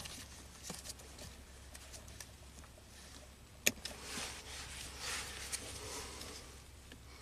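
Wire cutters snipping through wires in a car's wiring harness: one sharp click a little past halfway, with smaller ticks and the rustle of wires and gloved hands handling the bundle after it.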